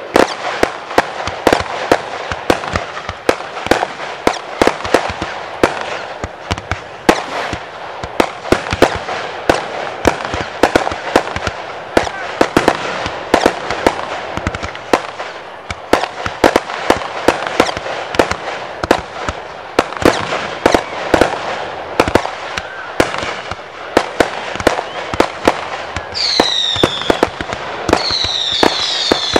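Class C (1.4G) consumer fireworks going off in rapid succession: many sharp reports of shots launching and bursting over a constant crackle. Near the end, several falling whistles.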